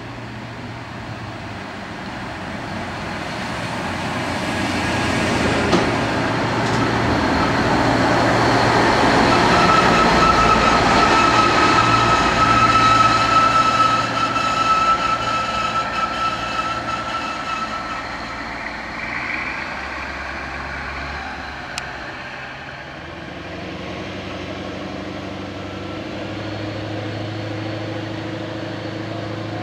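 Plasser & Theurer track tamper's diesel engine and wheels on the rails, growing louder as it approaches and passes, with a steady high squeal for several seconds in the middle. In the last third the engine settles into a steady, labouring drone (the tamper 'thrash') as the machine pulls away.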